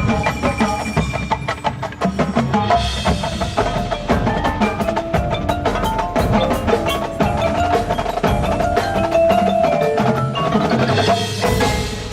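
Marching band music in a percussion-heavy passage: rapid strikes from mallet instruments and drums over held pitched notes.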